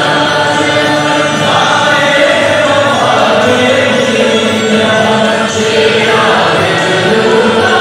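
A group of voices singing together, in long held notes.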